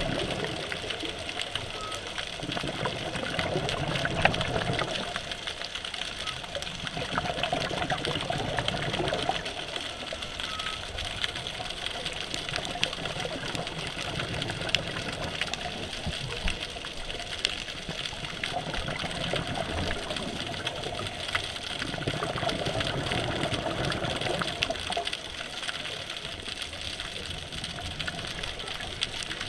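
Scuba diver breathing through a regulator, heard underwater: swells of bubbling from the exhaled air come and go every several seconds over a steady underwater hiss.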